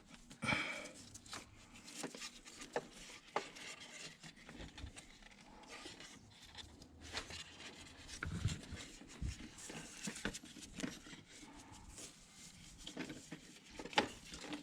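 Old serpentine drive belt being worked off the engine pulleys of a BMW F30 by hand, with the tension released: scattered light rubs, clicks and knocks of rubber against pulleys and metal.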